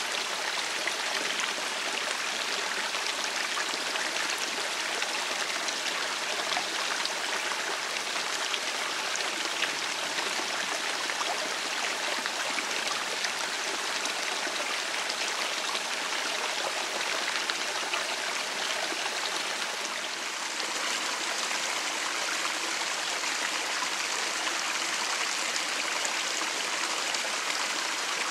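Small rocky woodland brook running: a steady rush and babble of flowing water. The sound shifts slightly about twenty seconds in.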